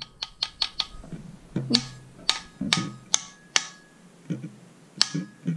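A light bulb being unscrewed and handled: a quick run of small clicks, then louder irregular clicks and light clinks about every half second, some with a brief ringing.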